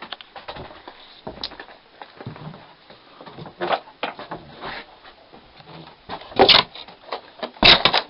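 Footsteps and knocks on the wooden floorboards of a log hut and its plank porch, with two loud wooden bangs, one about six and a half seconds in and one near the end, from the hut's plank door being handled.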